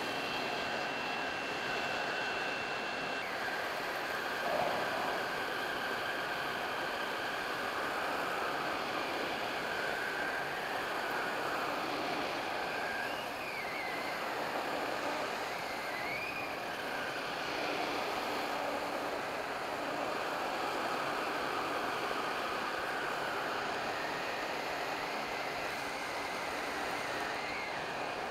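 Hot air rework station blowing a steady hiss of air through its nozzle onto a PS4's MN864729 HDMI chip, with a faint whine under it. The air is turned down a little and set at 485 °C, the heat it takes to melt lead-free solder and free the chip.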